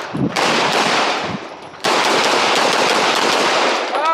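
Rapid pistol fire from a CZ Shadow 2 during a practical-shooting stage: loud shots in quick strings that run together, with a short lull about a second and a half in before a second string.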